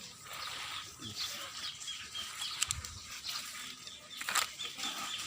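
Chickens clucking and small birds chirping, with a sharp knock about four seconds in.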